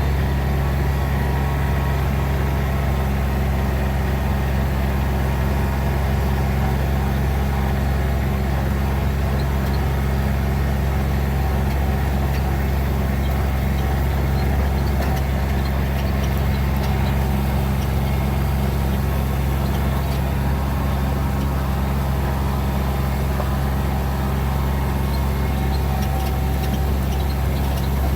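Steady engine hum and road noise of a moving vehicle, heard from inside, unchanging throughout.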